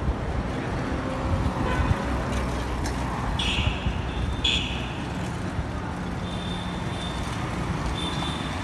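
City street traffic noise: motor vehicles running steadily, with a few short high-pitched toots, two stronger ones around the middle and fainter ones near the end.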